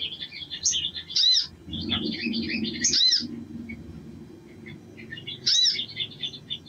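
Male olive-backed sunbird singing a fast, jumbled stream of high twittering chirps. Louder arched notes break through about a second in, about three seconds in and again near the end.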